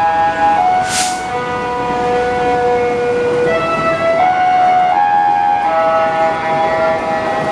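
Two railway level-crossing alarms sounding at the same time. Their electronic tones step between pitches out of step with each other. There is a short hiss about a second in.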